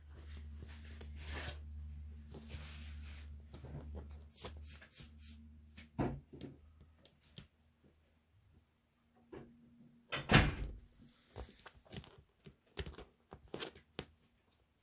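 Two four-week-old Egyptian Mau kittens wrestling and scrambling on a padded pet bed: scattered soft knocks, bumps and scuffles, with a loud thump about ten seconds in. A low steady hum lies under the first four seconds or so.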